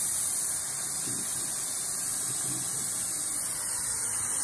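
Oxy-acetylene welding torch flame hissing steadily as its oxygen is turned up, bringing it from a carburizing flame toward a neutral flame.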